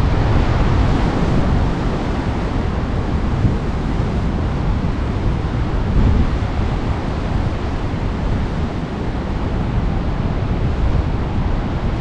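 Strong wind blowing across the microphone, with rough surf washing in underneath.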